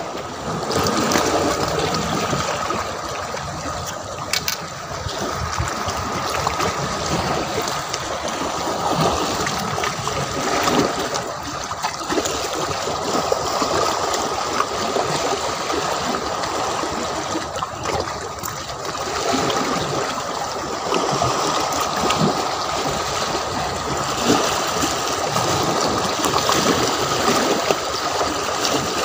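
Shallow sea water washing and lapping against a concrete seawall and rocks, a steady trickling, splashing wash.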